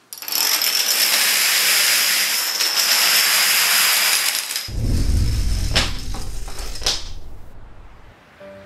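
A loud, steady hiss with a thin high whine in it. About four and a half seconds in, a deep boom takes over, with two sharp clicks, and it fades away.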